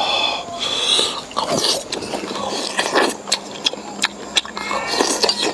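Eating sounds: chopsticks scraping and clicking as pieces of sticky braised pork belly are picked up, then chewing, with several sharp clicks scattered through.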